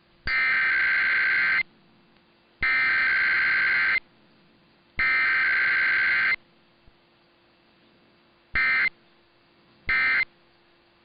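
Emergency Alert System SAME data bursts of a Required Weekly Test: three long buzzing two-tone digital header bursts, each about a second and a half long and evenly spaced, then three short end-of-message bursts near the end. No attention tone or voice message comes between them.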